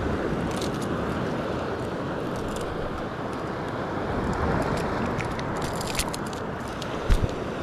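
Steady rush of surf and wind buffeting the microphone, with a few faint clicks and two low thumps near the end.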